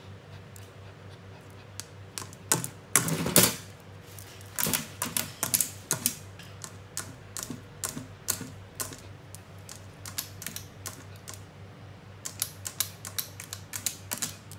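A dog's claws clicking and scratching on a glass terrarium and tile floor as it paws at the tank: clusters of quick sharp taps, with the loudest scratching about three seconds in and another run of taps near the end.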